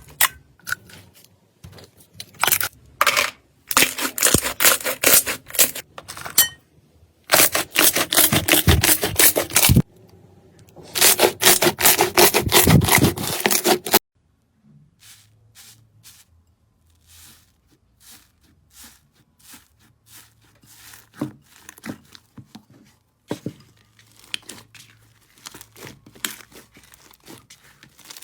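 Slime being worked by hand: dense crackling and popping in three bursts of a few seconds each in the first half, then quieter scattered clicks and squelches.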